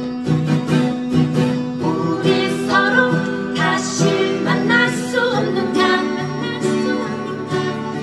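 Guitar playing a song's melody, with notes sliding into one another, over a steady accompaniment.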